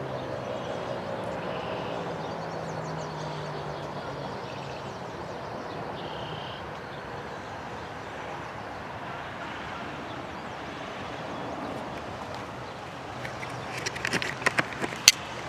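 Federal Signal 2001-SRNB outdoor warning siren winding down at the end of its test, its tone falling and fading out in the first couple of seconds, leaving a steady background rush. Near the end a flock of wild turkeys gives a quick burst of short, loud gobbles and calls.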